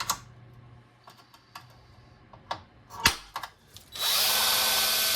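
A few light clicks and knocks, then about four seconds in an electric drill starts and runs loud and steady, drilling out a spot weld that holds a hood latch.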